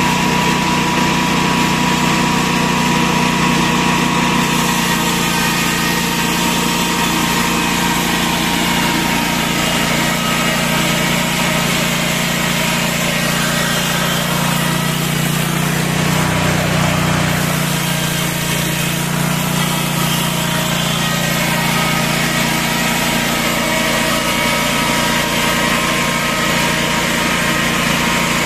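Portable horizontal band sawmill running steadily, its engine droning while the band blade rips lengthwise through a stack of slab boards on the final edging pass.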